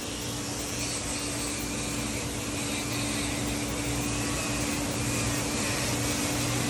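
Steady hum of an electric motor running, with an even hiss over it, growing a little louder toward the end.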